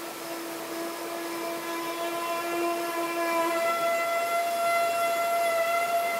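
Saxophone holding one long unbroken note rich in overtones. About three and a half seconds in, the low part of the tone drops away and a higher overtone takes over without a break. A rushing stream runs underneath.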